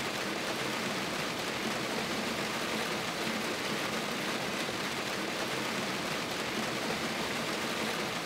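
Steady, even rush of water.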